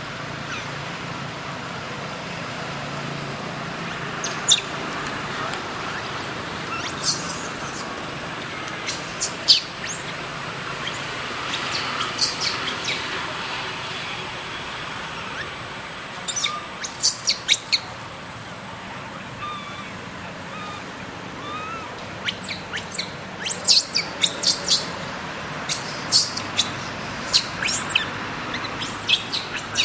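Small birds chirping in scattered bursts of quick, high chirps, over a steady background hiss.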